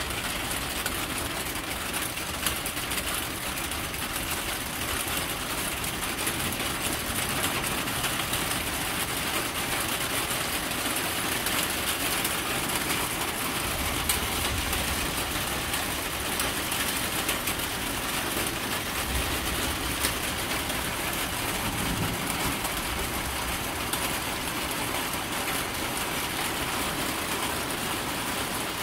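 Low rumbles of distant thunder, about halfway through and twice more soon after, over a steady hiss.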